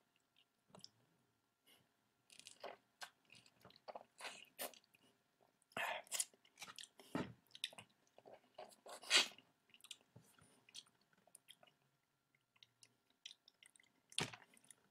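A person chewing and biting into a juicy grapefruit segment: irregular wet mouth clicks and smacks with short pauses between, loudest about six and nine seconds in.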